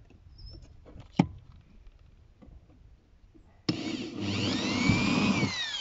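Cordless drill boring a pilot hole into a wooden hive-roof slat, starting suddenly about two-thirds of the way in, its motor whine rising and falling in pitch as it cuts.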